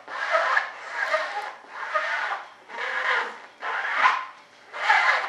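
A brush scrubbing resin into fibreglass cloth on a wing mold, in about six even back-and-forth strokes, a little more than one a second.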